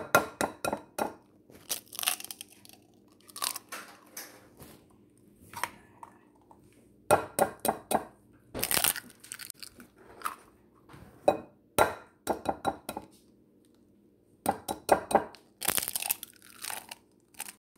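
Kitchen handling noises in irregular bursts: packaging crinkling and tearing, with sharp clicks and clatters of utensils and dishes, over a faint steady low hum.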